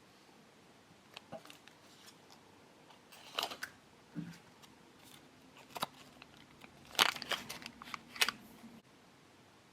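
Plastic packaging of a Popin' Cookin' candy kit handled close to the microphone: a scatter of sharp crinkles and clicks, the loudest at about three and a half, seven and eight seconds in.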